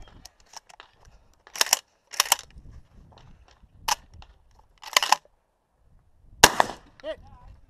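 A string of shotgun shots, about five, fired at uneven intervals over some five seconds, with the last one the loudest.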